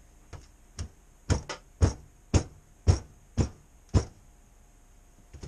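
About nine hammer blows, roughly two a second, then two more near the end, knocking a stuck piston out of an Evinrude outboard cylinder block.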